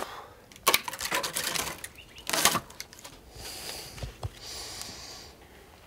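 Rope being pulled and knotted around a wooden pole: a few short rustling, scraping strokes, the loudest about two and a half seconds in, then two soft knocks.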